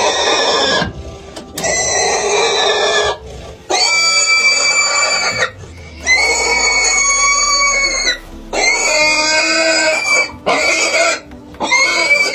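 Pot-bellied pig squealing loudly and repeatedly while held down for hoof trimming: about seven long, high screams, each a second or two, with short breaks between them.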